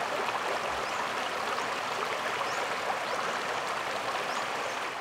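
Rushing river water in rapids: a steady, even rush that starts to fade near the end.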